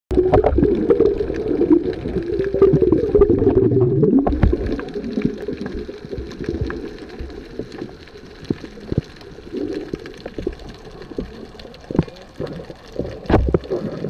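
Muffled underwater sound: a loud bubbling gurgle for about the first four seconds, then quieter, with scattered clicks and taps over a low hiss.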